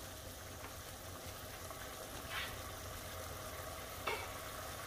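Thin beef steaks frying in their own juices in a pan over high heat, a faint steady sizzle as the liquid cooks off, with a couple of brief ticks.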